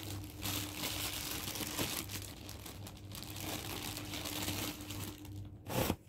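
Thin plastic bread bag crinkling and rustling as a hand rummages in it and pulls out slices, with a louder rustle just before the end.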